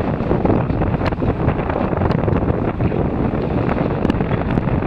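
Wind buffeting the microphone, a loud, steady noise that wavers rapidly in level, with a few faint clicks.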